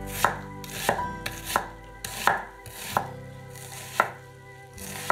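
Chef's knife dicing an onion on a wooden cutting board. The blade knocks the board in a steady rhythm, about seven strokes a little over one a second.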